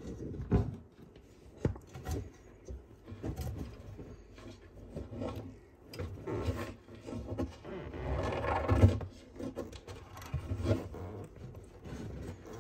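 Irregular knocks, clicks and scraping from a large sulcata tortoise moving about, with a longer rustling scrape about eight seconds in.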